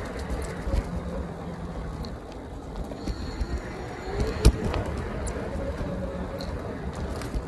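Riding noise of an electric bike off-road: a steady rumble of tyres on rough ground with scattered rattles and knocks, and one sharp jolt about four and a half seconds in.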